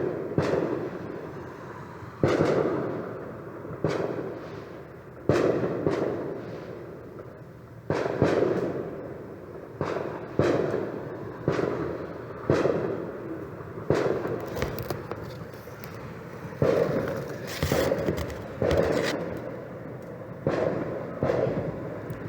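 A string of distant booms, one every second or two, each dying away in a rolling echo. A sharper crackle joins in around the middle.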